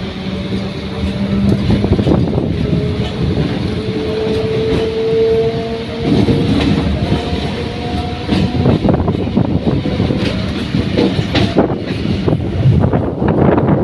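Electric suburban local train running, heard from aboard: a steady rumble of wheels and coach with a faint steady whine through the first half, then rapid clattering as the wheels run over rail joints and points.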